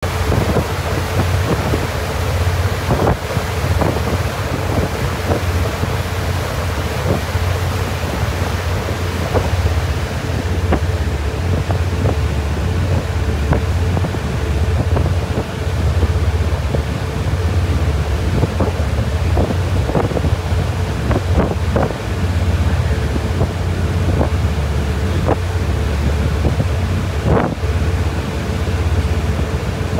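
Passenger ferry under way: its engines keep up a steady low drone with a thin steady hum above it, under the rushing wash of the water. Wind buffets the microphone, with frequent short knocks.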